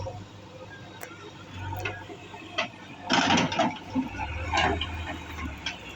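A series of irregular sharp knocks and snaps, loudest as a dense cluster about three seconds in, over an intermittent low hum.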